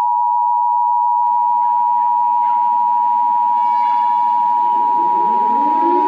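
Emergency Alert System attention signal: a loud, steady two-tone beep. About a second in, a rushing noise comes in underneath it, and near the end a rising wail starts to climb beneath the tone.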